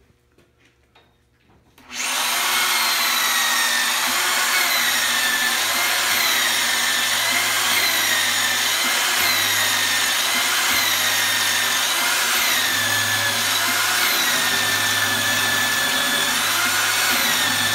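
The tubing notcher's motor starts about two seconds in and its deep-cut hole saw cuts into the flat face of a square metal tube. The feed is pulsed to clear the chip, so the high cutting tone dips and recovers every two to three seconds.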